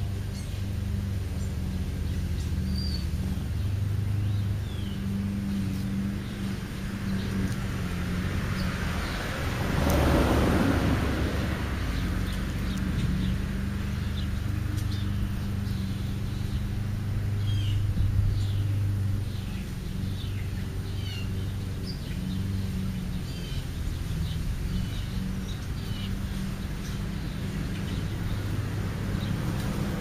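A steady low motor hum, with a vehicle passing about ten seconds in, rising and then falling away. Small birds give short chirps now and then over it.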